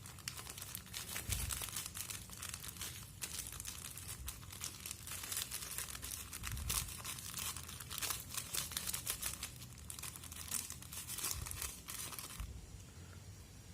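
Crinkling and rustling of a plastic packet of citric acid powder as it is handled and emptied, a dense crackle of small clicks that stops shortly before the end.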